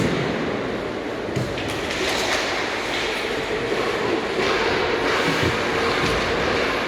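Ice hockey rink ambience: a steady scraping noise of skates on the ice over the arena's hum, with a few sharp knocks of sticks and puck.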